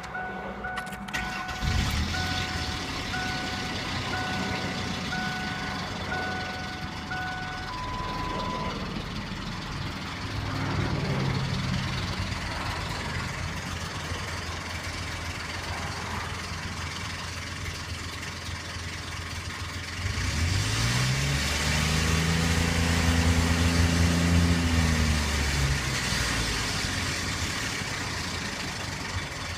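1998 Ford Explorer engine idling with a clicking, ticking noise, revved briefly about ten seconds in, then held at higher revs for several seconds before dropping back to idle; the noise came from a broken timing chain tensioner. A vehicle chime beeps repeatedly over the first several seconds.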